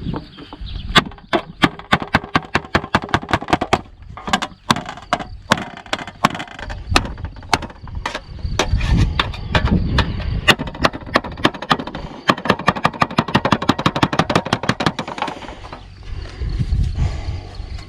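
Rapid, repeated sharp strikes, several a second with a few short pauses, as a pocketknife blade is driven into a piece of metal.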